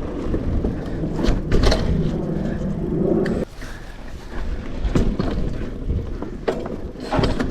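A mountain bike rolling over wooden trail features: a tyre-and-wind rumble that stops suddenly about three and a half seconds in, with scattered knocks and clunks from the bike.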